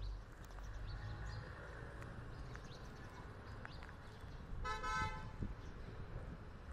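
A vehicle horn sounds once, a short steady honk about five seconds in, over faint low street noise.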